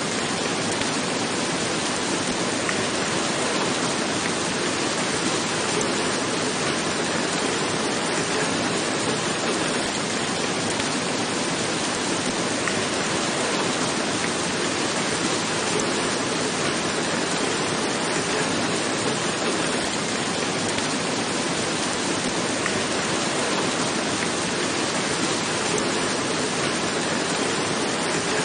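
Steady rain falling on a roof: an even, unbroken hiss with no separate drops or thunder standing out.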